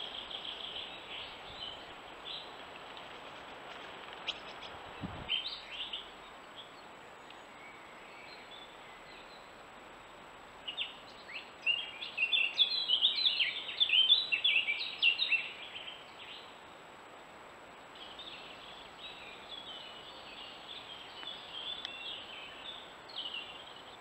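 Small wild songbirds chirping and calling over a steady background hiss, with a dense run of rapid, loud chirps about halfway through. There is one brief click about five seconds in.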